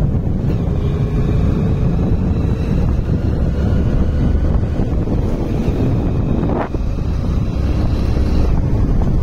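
Wind buffeting the microphone of a motorcycle riding at about 40 km/h, a heavy steady rumble, with the bike's engine running evenly beneath it. A short sharp sound cuts through about two-thirds of the way in.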